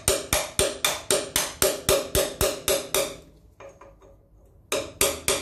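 Hammer striking a big flat punch, metal on metal, with a ringing tone: rapid, even taps at about four a second, a pause of about a second and a half, then more taps. The punch is folding the tab of a hub-nut locking washer flat against the nut to lock it.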